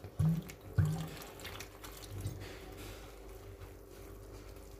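Water poured from a glass bottle into flour, with hands squishing it into a soft dough in a clay bowl: faint wet trickling and squelching. Two short low hums sound near the start, about half a second apart.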